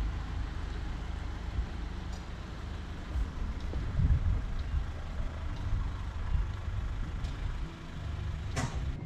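Steady, uneven low rumble of a motor vehicle with road noise, and a single short knock near the end.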